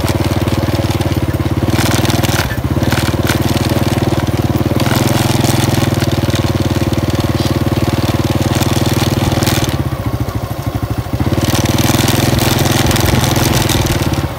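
Small motorcycle engine running steadily at riding speed, with rumbling road and wind noise. The sound eases off for about a second a little under ten seconds in, then picks up again.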